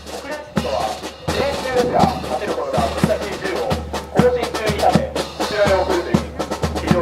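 Brass band playing, with a steady bass-drum beat under the horns.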